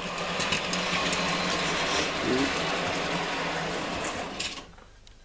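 Hornby OO gauge K1 model locomotive running on the layout track, a steady motor whir with faint clicking of wheels on the rails. The whir dies away sharply near the end as the loco comes to a stop.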